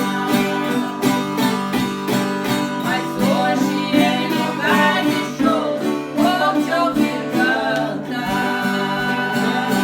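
Acoustic guitar strummed in a steady rhythm, accompanying singing of a gospel praise song; the singing is clearest in the middle of the stretch.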